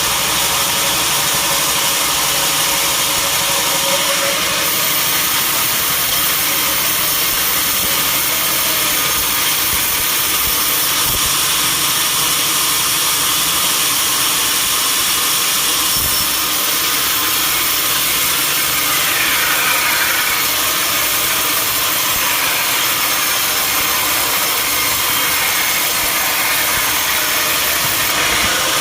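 Sawmill machinery running steadily, a loud even mechanical noise with no pauses.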